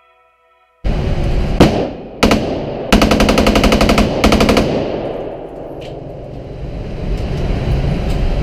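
Rifle fired on an indoor range: two single shots, then a fast string of shots lasting a little over a second and a shorter string just after, each ringing off the hall. The firing then stops, leaving the range's steady background noise.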